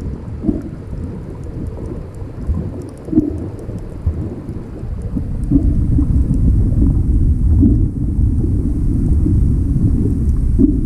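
Underwater noise heard through a camera's waterproof housing: a muffled low rumble of moving water with sparse faint crackling clicks, growing louder about halfway through.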